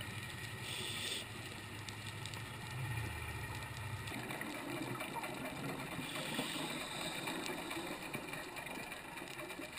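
Underwater ambience on a reef dive: a steady low hum that cuts off about four seconds in, over a constant fine crackle, with bubbly noise in the second half.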